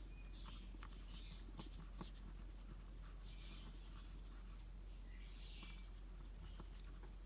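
Faint rubbing of fingertips rolling a small piece of pearl polymer clay into a log on a work surface, with a few soft ticks.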